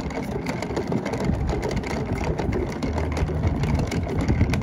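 Wheels of a rolling cooler running over wooden dock planks: a steady low rumble with many small clacks.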